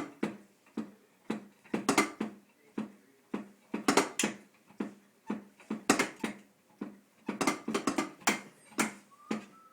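Electronic drum kit being struck in an uneven beat, about two hits a second, some of them quick doubles.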